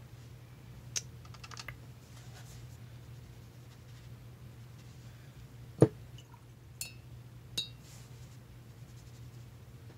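Small handling sounds while painting a watercolour swatch with a brush: a light tap and short rattle about a second in, a sharp knock about six seconds in, then two light clinks with a brief ring, over a steady low hum.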